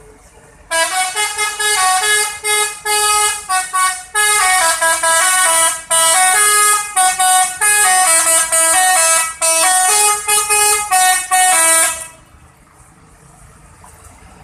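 Telolet horn, a set of multi-tone air horns, playing a tune as a run of short, quick notes and longer held ones. It starts just under a second in and stops about twelve seconds in.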